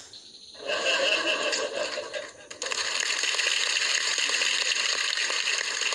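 Studio audience and panel laughing, cheering and clapping. It breaks out suddenly under a second in and grows fuller and steadier about two and a half seconds in.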